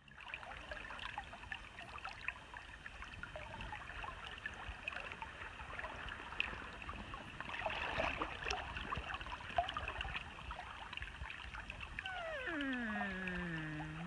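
River water flowing and trickling, with many small splashes and drips. Near the end a pitched tone with overtones glides down over about two seconds.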